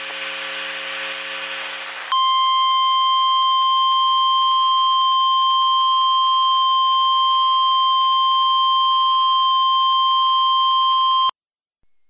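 A harsh buzzing noise for about two seconds, then an emergency alert attention tone: one steady beep held for about nine seconds that cuts off suddenly, signalling that an emergency alert message follows.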